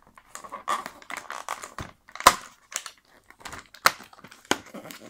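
Perforated cardboard door of a Kinder advent calendar being pressed and torn open by fingers: a run of irregular sharp clicks and cracks, the loudest snaps a little after two seconds in and near four seconds.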